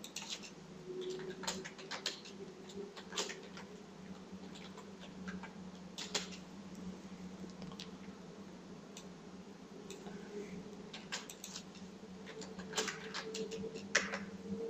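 Computer keyboard typing and mouse clicks: scattered, irregular clicks that bunch into quicker runs near the end, over a faint steady hum.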